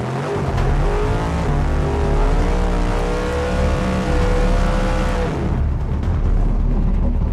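Drag race car engine at full throttle, its pitch climbing and then holding steady before it cuts off about five seconds in, over a steady low rumble.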